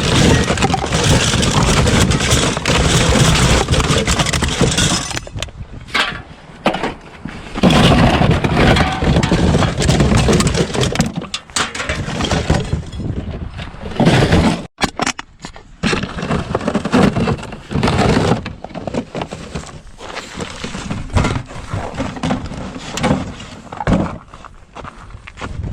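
Empty cans and bottles clattering and clinking as a recycling bin is rummaged through, in loud uneven bursts with short pauses.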